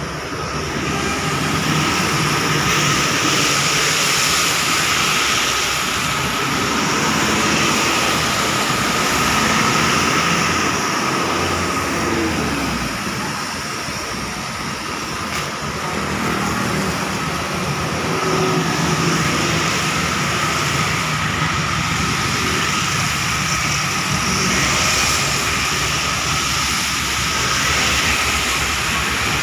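Heavy traffic passing on a wet highway: buses, trucks and cars going by with tyres hissing on the wet road surface and engines running, the noise swelling as each vehicle passes.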